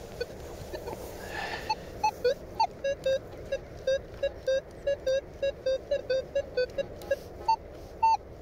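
Minelab Manticore metal detector beeping as the coil sweeps back and forth over a target: a fast run of short low tones, about three or four a second, with a few higher tones mixed in. It is a good target signal sitting among iron. The beeping starts about two seconds in.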